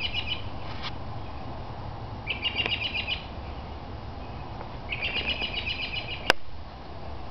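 A songbird singing: three bursts of rapid high chirping notes, each about a second long and a couple of seconds apart, over a steady low rumble. A sharp click comes about six seconds in.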